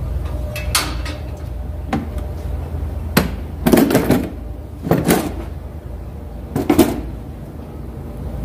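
Truck battery box cover being unlatched and lifted off: a series of knocks and rattling clatters, about six in all, the loudest near the middle and near the end, over a steady low rumble.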